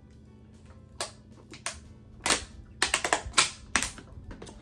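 Thin plastic crinkling and crackling as it is handled: a string of sharp, irregular crackles about a second apart, bunching closer together in the second half.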